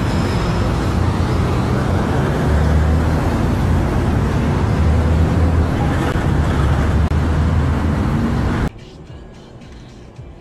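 Loud roadside traffic noise, a steady rushing with a low engine hum under it. It cuts off suddenly about nine seconds in to a much quieter hum.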